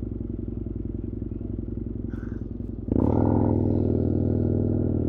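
Husqvarna Nuda 900R's parallel-twin engine idling with an even pulse, then, about three seconds in, the throttle opens and the engine note jumps suddenly louder and holds there.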